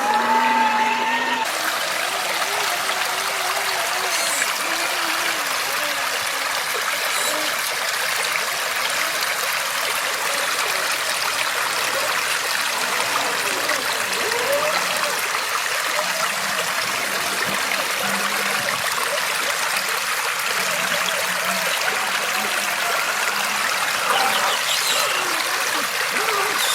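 River water flowing and trickling steadily.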